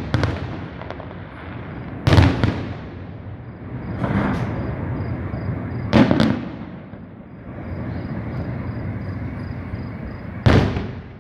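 Aerial fireworks shells bursting overhead: a few sharp bangs a couple of seconds apart, one a quick double, with a steady crackling hiss between them.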